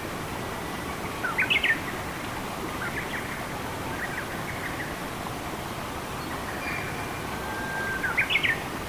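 Steady rushing of flowing forest water with songbirds chirping over it: a quick burst of rising chirps about a second and a half in, a second burst near the end, and a few fainter chirps and short whistles between.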